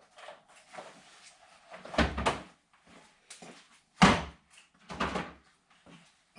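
Knocks and clunks of sawhorses and a board being set down and shifted into place: light taps, a heavier double clunk about two seconds in, the loudest sharp knock about four seconds in, then another clunk.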